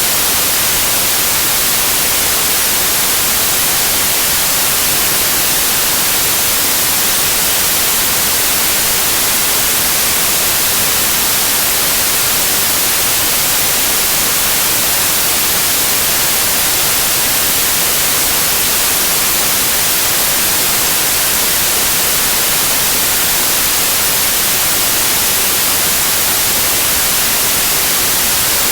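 Steady white noise like TV static: an even hiss, strongest in the treble, that never changes in level.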